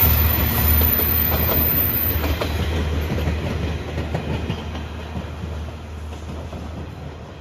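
The Seto Ohashi Anpanman Torokko, a KiHa 185 diesel railcar hauling an open trolley car, runs past and pulls away. Its low engine hum and the clicking of its wheels over the rail joints fade steadily as it goes.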